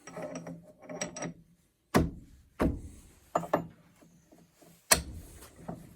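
Metal lathe parts knocked and clunked together as an attachment is fitted onto the lathe, with some scraping at first. There are several sharp knocks, and the loudest comes near the end.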